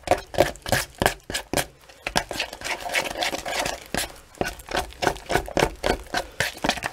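Sheetrock 90 quick-setting joint compound being mixed by hand in a plastic bowl: a tool scrapes and slaps the wet compound against the bowl in quick repeated strokes, several a second.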